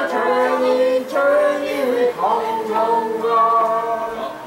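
Young female voices singing a tune unaccompanied in held notes, with short breaks about one and two seconds in.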